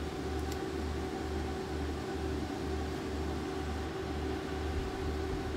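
Steady electrical and fan hum from a running high-power VHF linear amplifier's cooling fans and power supplies, with one constant mid-pitched tone and a low throb that pulses about twice a second.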